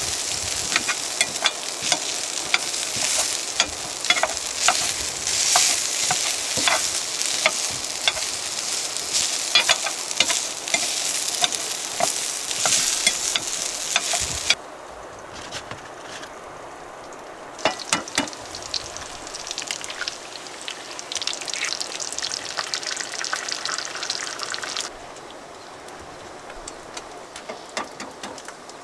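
Crinkle-cut hash brown potatoes sizzling in a cast-iron skillet, turned with a metal spatula that scrapes and clicks against the pan. The sizzle drops off suddenly about halfway through, comes back more weakly for a few seconds with a few sharp clicks, then sinks to a low background near the end.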